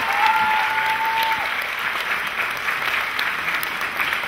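Audience applauding steadily with dense, continuous clapping; a long high-pitched held call rings out over it and fades about a second and a half in.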